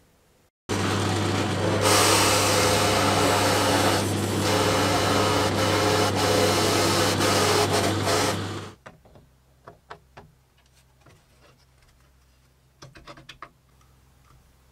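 Bench drill press running and boring into a wooden board: a steady motor hum with a hiss of cutting over it, which starts just under a second in and stops about eight and a half seconds in. After it, a few light clicks and taps of small parts being handled.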